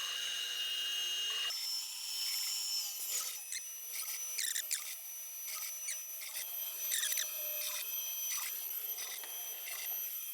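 CNC router carving a wood relief: steady high-pitched whine from the spindle and stepper motors, whose tones jump and glide in pitch as the axes change speed and direction, over scraping bursts of the bit cutting wood.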